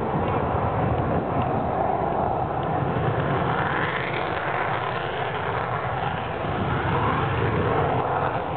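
Fighter jet engines running on a distant runway: a steady rumble of jet engine noise, with a faint rising whine around the middle.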